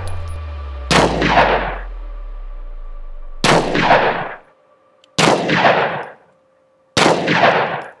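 Four 9mm pistol shots of Liberty Civil Defense +P ammunition, each a sharp crack that trails off in about a second of echo, fired roughly two seconds apart.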